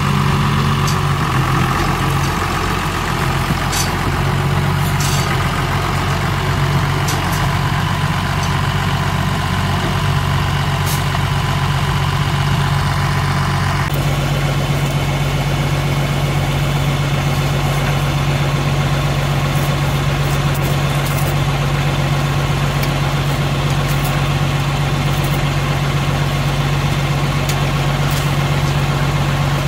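Large diesel engine idling steadily, with a few faint clicks on top. The sound changes abruptly about halfway through, then idles on evenly.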